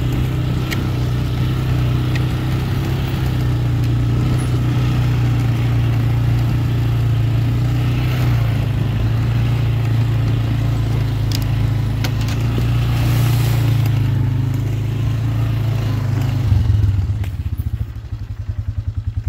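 ATV engine running steadily under way, with a few clicks and knocks. About three-quarters of the way through the engine drops back and settles into a slow, even pulsing, like an idle.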